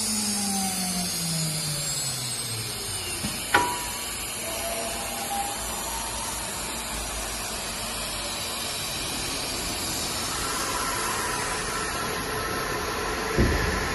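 CNC router with an automatic tool changer running with a steady whooshing whir. Its pitch falls away over the first few seconds, and a sharp click comes a few seconds in. Near the end new steady tones come up, followed by a thump.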